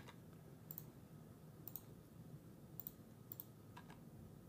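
Faint computer mouse and keyboard clicks, about six sharp clicks at irregular intervals, some as quick double ticks, over a low steady room hum.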